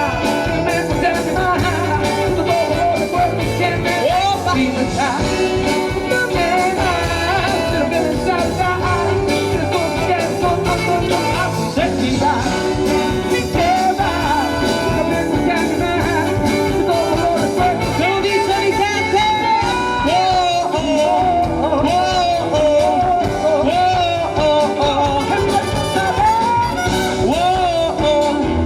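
Live rock band playing: steady drums and bass under a lead line of bending, wavering notes.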